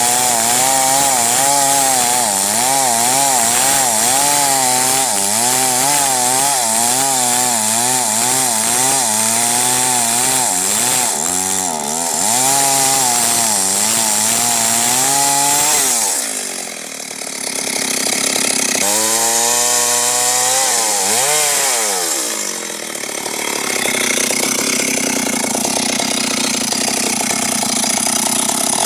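Chainsaw running hard under load as it cuts a large tree, its engine pitch wavering as the chain bites. About 16 seconds in the engine drops off briefly, then revs up high and falls away again before settling back into cutting.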